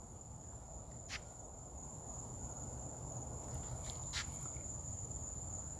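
Crickets trilling, one steady high-pitched drone, over faint low rustling noise with two brief clicks, about one second and four seconds in.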